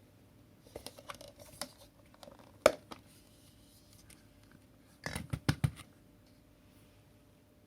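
Irregular sharp clicks and knocks of hard objects being handled: a loose scatter at first, one loud click nearly three seconds in, and a quick run of knocks just after five seconds.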